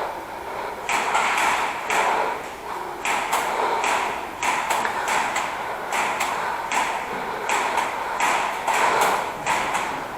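Airsoft gunfire in close quarters: sharp snapping shots at irregular intervals, some in quick clusters of two or three.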